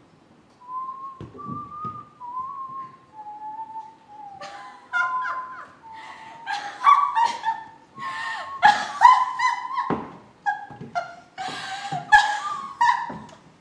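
A person whistling a short, wavering tune. From about four seconds in, a woman breaks into a string of loud, short cackling bursts of laughter, hen-like.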